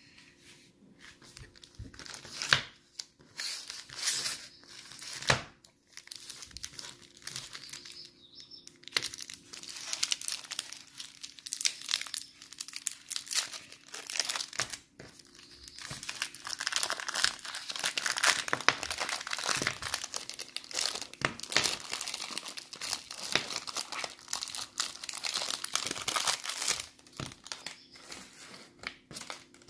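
Maoam Bloxx candy wrapper being crinkled and torn open by hand: irregular sharp crackles and rustles, getting denser about halfway through.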